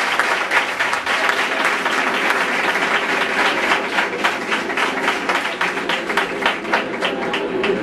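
Audience applauding, dense at first, thinning out to more separate claps over the last couple of seconds.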